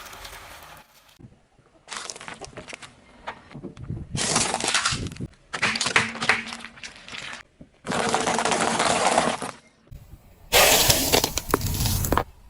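Car tyres rolling over and crushing crunchy objects, in five short separate bursts of crackling and breaking that start and stop abruptly, the last one the loudest.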